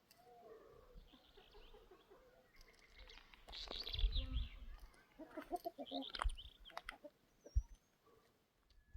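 Birds chirping and calling in short bursts, with a few knocks and thumps in the middle.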